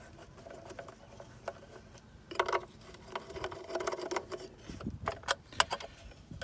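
Hands and tools working on a pool pump: scattered clicks, taps and short rattles, with two denser bursts of rattling a couple of seconds in and again around the middle.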